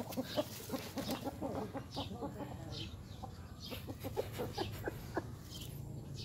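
Chickens clucking, with a run of short, clicky calls and scattered brief high calls over a low steady background hum.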